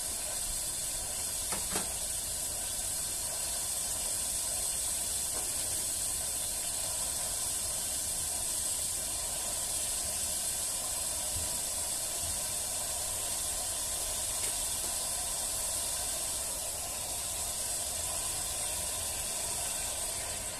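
A steel pot of leeks and rice sizzling and steaming over a strong charcoal stove, making a steady hiss.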